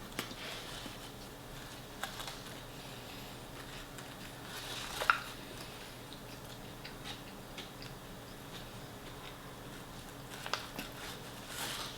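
A person eating close to the microphone: quiet chewing with scattered small clicks and ticks from mouth and food, with one sharper click about five seconds in and another near the end.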